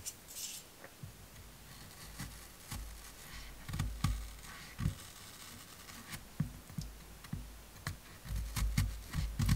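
Civivi Baby Banter small folding pocket knife cutting into a whole apple on a wooden cutting board: scattered quiet crunches, clicks and soft knocks as the blade is worked into the fruit and the board is bumped.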